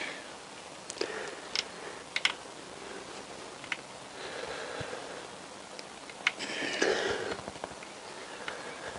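Small metal clicks and taps of a bolt, chain and sprocket being handled while fingers work a small bolt into the oil pump drive sprocket of a Honda CBR1000F engine, with a couple of soft scuffing stretches between the clicks.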